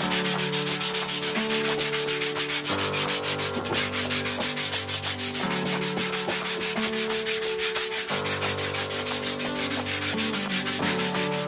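Hand sanding: sandpaper on a small block rubbed back and forth over a wooden panel in quick, even strokes, several a second.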